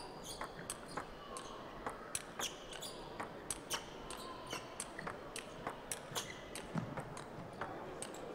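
Celluloid/plastic table tennis ball being struck back and forth in a rally: sharp clicks of the ball off rubber-faced rackets and off the table, several times a second at an uneven pace.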